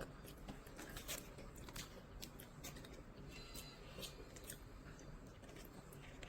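Faint, irregular small clicks and crinkles from a snack being handled and eaten at close range.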